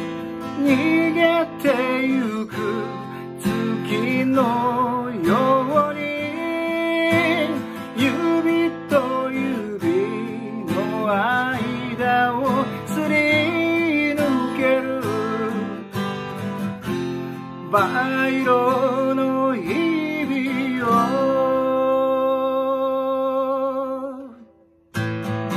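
A man singing in Japanese while strumming a steel-string acoustic guitar. Near the end he holds one long note, then the sound drops out for a moment before the guitar comes back in.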